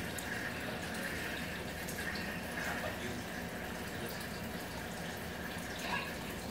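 Steady trickle and rush of water circulating in a home reef aquarium, with a faint constant low hum underneath.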